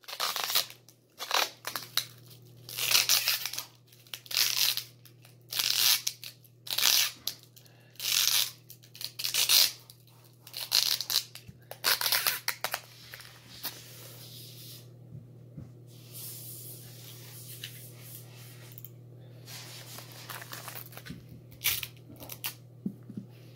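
Clear adhesive tape being pulled off its roll in short loud pulls, about one a second, as it is wound tightly round a foil-covered glass bottle. The pulls stop a little over halfway through, leaving a low steady hum, and a few softer pulls come near the end.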